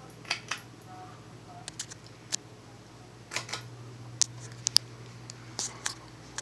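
PCI 42-inch ceiling fan motor running with a low steady hum, with irregular sharp clicks scattered over it; the loudest two come a little past the middle.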